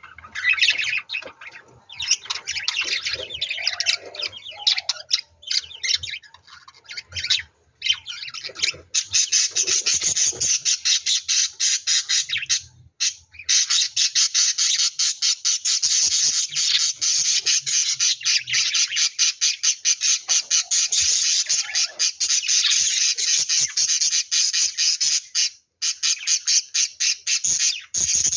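Lovebirds chattering with shrill, rapid squawks and chirps, scattered at first and becoming a continuous fast chatter from about nine seconds in.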